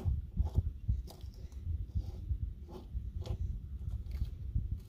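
Irregular small clicks and scrapes of a hub nut being threaded by hand onto a BMW E30 front wheel spindle, spun on finger-tight, over a low rumble.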